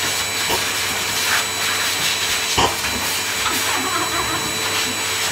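Pet grooming blower (hose-type dog dryer) running steadily, blowing air through its hose to dry a wet husky's coat after a bath: a constant rush of air with a thin motor whine. A brief knock about halfway through.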